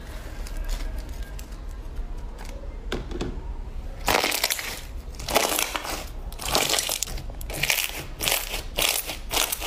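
Hands stretching, poking and squeezing clear blue slime. Quiet sticky sounds at first, then from about four seconds in a quick run of loud squishes, about two a second.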